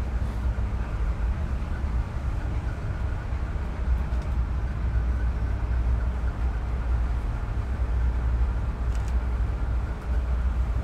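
Steady low rumble of the car ferry Queen of Capilano under way: engine drone with the wash of water, unchanging throughout.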